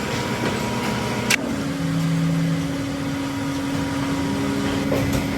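Factory machinery running with a steady hum and held tones, with a sharp click a little over a second in, after which the hum's pitch changes.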